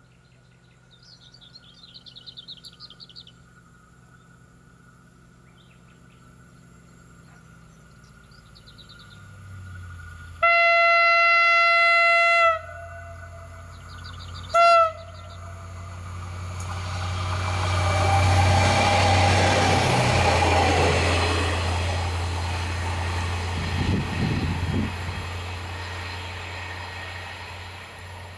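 A diesel railbus sounds its horn as a warning before a level crossing without signals: one long blast of about two seconds, then a short blast two seconds later. It then passes the crossing, its engine and wheels swelling to a peak and fading. A bird sings faintly in the first few seconds.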